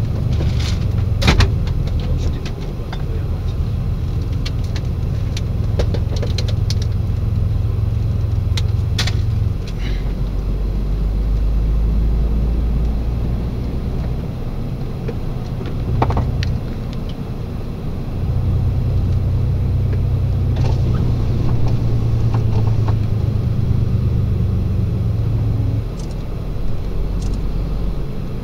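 Engine and road noise heard from inside a moving vehicle's cab: a steady low drone that drops in pitch about ten seconds in and rises again near eighteen seconds, as engine speed changes. A few short clicks and rattles come from the cab.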